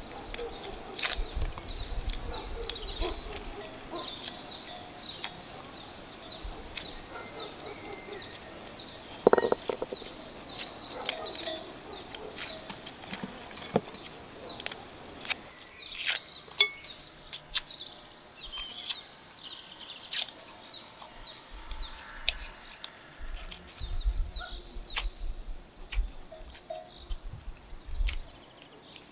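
Small birds chirping constantly, many short high chirps a second. Underneath come scattered sharp clicks and taps from garlic cloves being peeled with a small knife, with one louder knock about nine seconds in.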